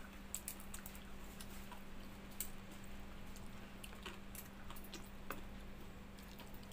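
Close-up eating sounds: chewing and small mouth smacks, with scattered light clicks as fingers work in a bowl of water-soaked rice, over a steady low hum.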